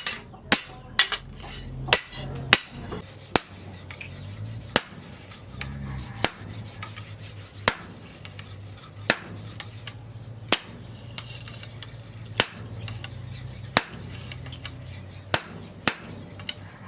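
Hammer blows on steel in a blacksmith's forge: single sharp strikes about every second or so, at an uneven pace and quicker in the first few seconds, over a low steady hum.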